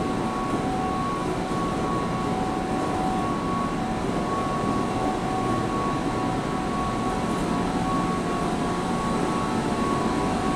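Steady drone of plant machinery in a sewage plant's digester heat-exchanger and pump room, with thin whining tones that drop out and come back. The sludge circulating pumps and hot-water boiler equipment are running.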